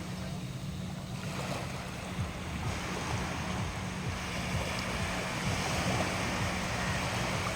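Sea waves washing, with wind buffeting the microphone in a steady rumble.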